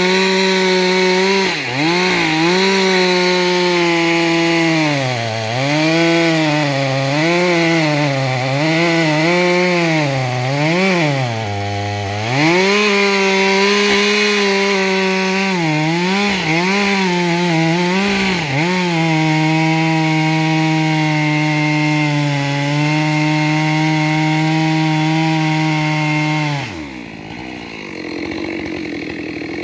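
Gas chainsaw cutting through a log, its engine pitch dipping and recovering again and again as the chain bites, then holding steady under load. Near the end the engine pitch slides down and the cut stops.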